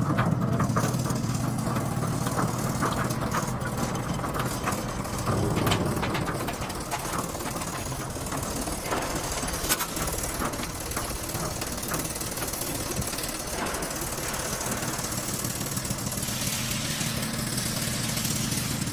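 French fry processing line machinery running: a steady low machine hum with continual light rattling and clicking as the fries move over the stainless steel conveyors.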